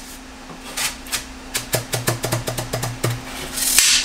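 Quick run of hollow knocks and rattles, about six a second, as a 5-inch filament-wound fiberglass rocket nose cone is handled and turned over, ending in a brief, loud scrape near the end.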